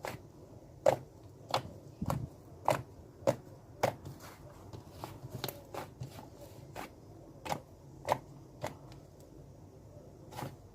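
Slime being squished and pressed by hand, giving sharp clicking pops about every half-second to second. The pops are loudest in the first few seconds and turn fainter and sparser after that.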